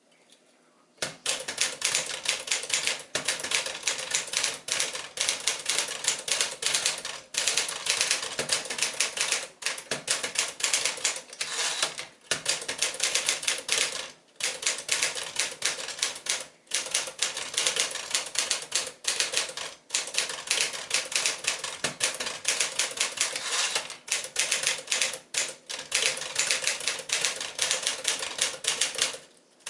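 1955 Smith-Corona Sterling manual typewriter being typed on: quick runs of sharp key strikes, several a second, starting about a second in and broken by short pauses.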